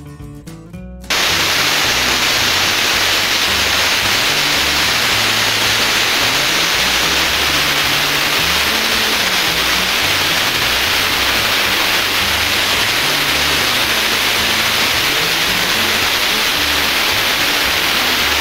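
Loud, steady static-like hiss that switches on abruptly about a second in, with faint background music beneath it.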